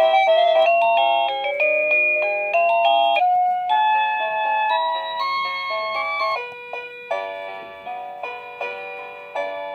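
SmartDude wireless doorbell receiver playing one of its built-in electronic chime tunes: a melody of clean stepped notes.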